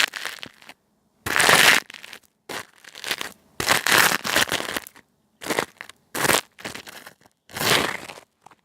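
Dry leaves crunched and crumpled in a series of about eight short crackling bursts, with near silence between them.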